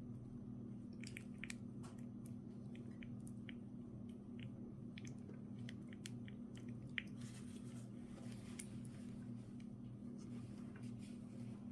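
Faint, scattered small clicks and ticks of the key and the ignition lock cylinder's parts being handled and tried, over a steady low hum.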